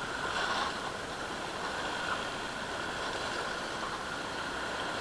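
Steady rushing of small waves washing over a rocky shoreline.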